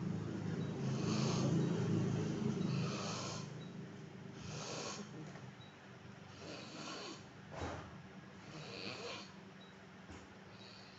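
A man snoring in his sleep: a loud, low rumbling snore over the first three seconds, then quieter, hissing breaths about every one and a half to two seconds.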